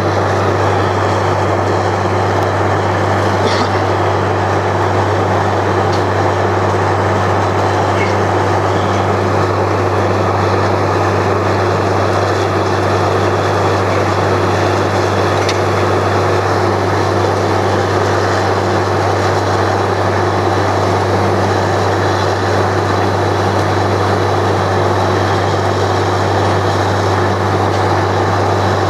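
Truck-mounted borewell drilling rig running while drilling: a constant low engine drone with a dense rushing mechanical noise over it, steady and unchanging in level.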